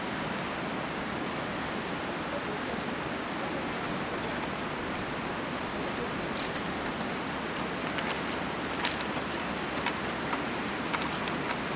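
Steady outdoor wind-like noise. Light scattered clicks and crackles in the second half come from a rolled reed yurt wall screen being folded and picked up. A brief high chirp sounds about four seconds in.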